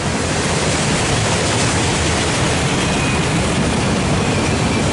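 Empty autorack cars of a freight train rolling past: a steady rumble of steel wheels on the rails.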